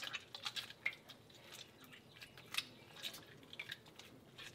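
Hands folding and stretching a hot lump of fresh mozzarella curd over a pot of hot water: faint, irregular wet squishes and drips.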